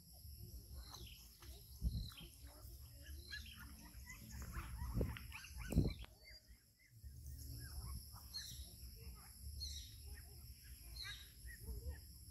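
Young monkeys giving many short, high squeaks and chirps, over a steady high trilling of insects and a low rumble with a few dull thumps.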